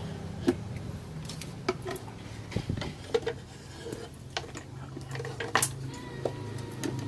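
Irregular sharp clicks and light clinks of hard objects being handled, over a steady low hum.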